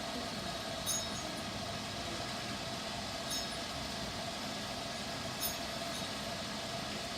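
Salon hood hairdryer running: a steady blowing rush with a constant hum, with a few faint light clicks.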